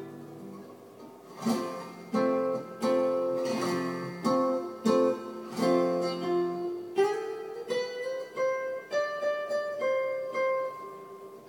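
Classical guitar played through a Roland KC-110 amplifier as a song intro: strummed chords start about a second and a half in, then a picked single-note melody climbs from about seven seconds in.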